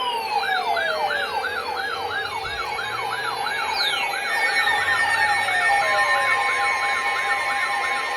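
Layered electronic alarm tones: a rapid yelp siren warbling about three times a second, long whistling tones sweeping downward every few seconds, and steady tones joining in partway through.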